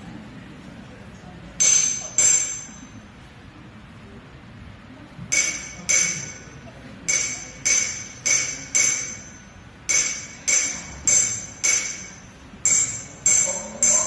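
Bell-like metallic percussion struck in an even rhythm over a low room hum, the start of the backing music for a stage mime. A pair of ringing strikes comes about a second and a half in, then a steady run of strikes a little under two a second from about five seconds in.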